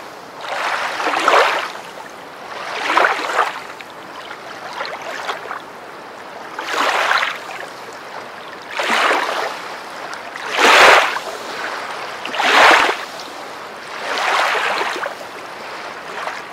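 River water lapping and washing against the shore in swells, each about a second long and coming roughly every two seconds.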